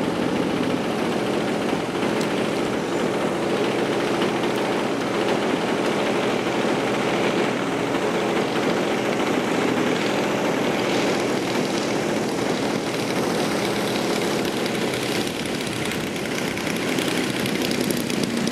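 Radio-controlled model airplane's engine and propeller running steadily at low throttle as it comes in to land, its level holding nearly even with a slight drop near the end.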